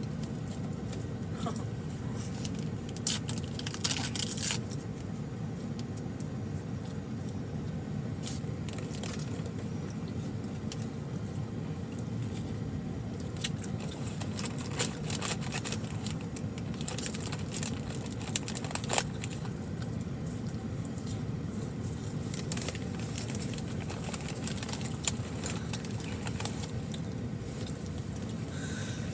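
Steady low hum of a car interior, with a few scattered clicks and rustles, such as food packaging being handled.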